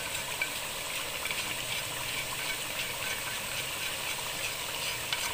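Chicken pieces frying in oil with ground spices in a pot, a steady sizzle with fine crackling, as the masala is browned.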